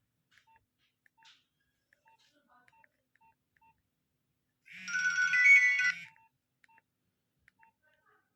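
Nokia 1208 mobile phone: faint short keypad beeps as buttons are pressed. Nearly five seconds in, a ringtone plays loudly for about a second and a half, then cuts off.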